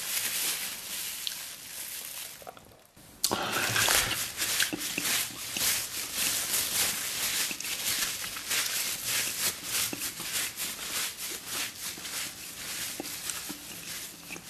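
Thin plastic bag being crumpled and twisted in the hand, crinkling, with a brief lull and then a loud burst of crinkling about three seconds in.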